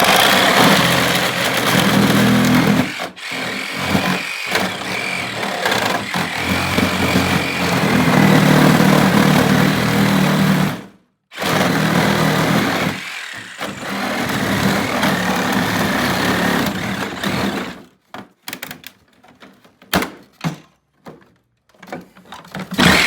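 A loud motor-driven machine running with a steady whir and low hum. It cuts out briefly about eleven seconds in, runs again, and stops near the end, followed by a few scattered knocks and clicks.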